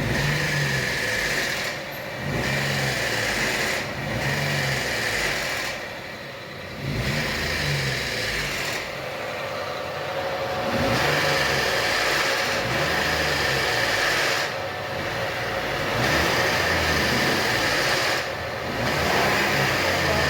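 Three-cylinder Renault Logan engine running with a loud, complex noise that swells and fades roughly every two seconds. The noise came from its variable valve timing solenoids, clogged with oil sludge so they no longer actuated, not from the engine's internals.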